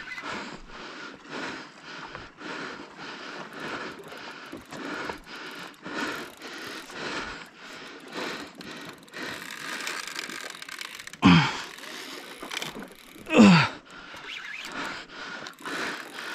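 A Daiwa Saltiga Expedition 5500H spinning reel being cranked under load while fighting a bluefin tuna, a rhythmic sound of about two strokes a second. Two louder, short sounds fall sharply in pitch about eleven and thirteen seconds in.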